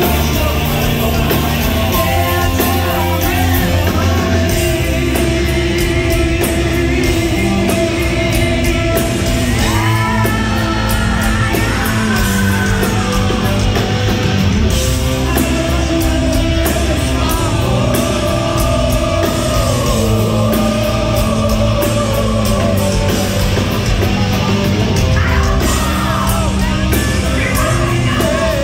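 A live hard rock band playing loud: a lead singer over electric guitars, bass and drums, heard from within the crowd in a concert hall.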